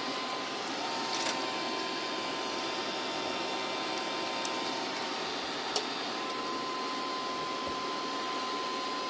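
Steady whirring hum of a powered-on MakerGear M2 3D printer's cooling fans, with a thin constant whine, and a few faint clicks from the bed and its binder clips being handled.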